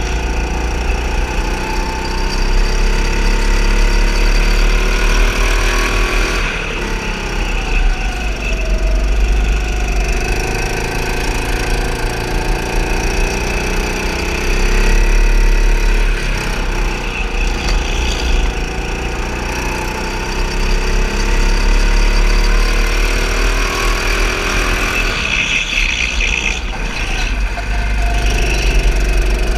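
Go-kart engine running under the rider, its pitch rising and falling over and over as the kart speeds up on the straights and slows for the corners. A brief high squeal near the end, as the kart turns hard through a corner.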